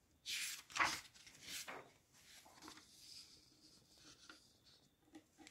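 A sheet of paper being slid away and a fresh one laid down on the desk: a few loud rustling swishes in the first two seconds, then faint rubbing and scraping of paper.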